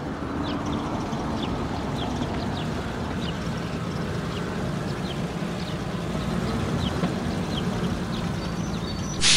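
Cartoon toy dump truck's engine running steadily as it drives, with short high bird chirps over it.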